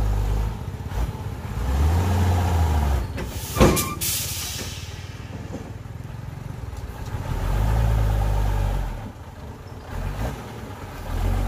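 Diesel dump truck engine revving up and down in repeated swells while its hydraulic tipper bed is raised to dump a load of soil. A single short, sharp hiss cuts in about three and a half seconds in.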